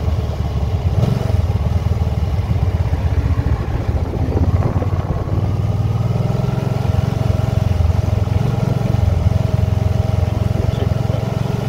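Can-Am motorcycle's engine running steadily while riding along, under heavy low rumble of wind buffeting the microphone.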